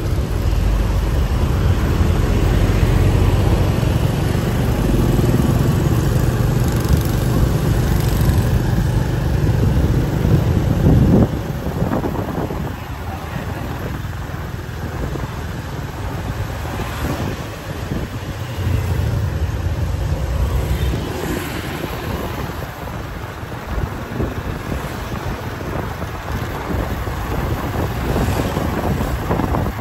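Street traffic, mostly motorbikes and cars passing, with a heavy low rumble for about the first eleven seconds that then eases to a lighter, steady traffic hum.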